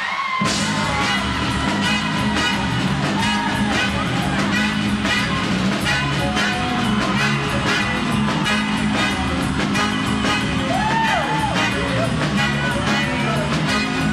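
Soul band music with a steady beat and a strong bass line, with singing coming in about ten seconds in.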